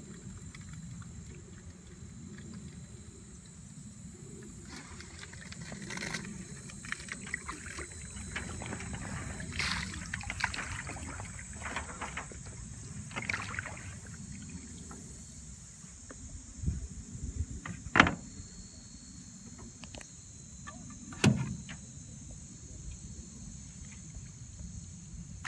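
Canoe being paddled on calm water: splashing and dripping from paddle strokes in short clusters, then two sharp knocks about three seconds apart near the end.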